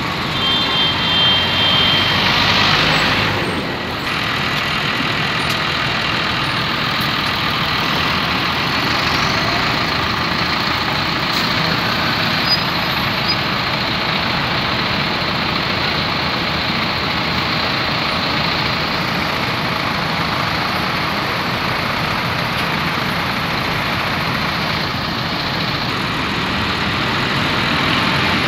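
Farm tractors in a slow convoy driving past, their diesel engines running steadily together with tyre and traffic noise. A short high tone sounds near the start.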